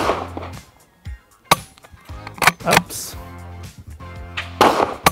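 Sharp knocks and clicks from a biathlon-style straight-pull .22 LR rifle firing quiet subsonic rounds at a steel gong and being cycled between shots. The hits at the start and near the end ring briefly. Background music runs underneath.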